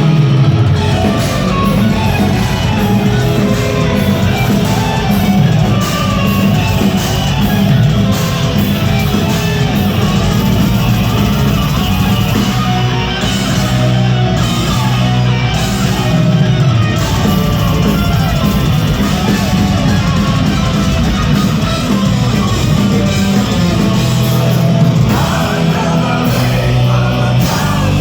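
Symphonic power metal band playing live at full volume: electric guitars, bass and drums with a lead singer, in a large hall.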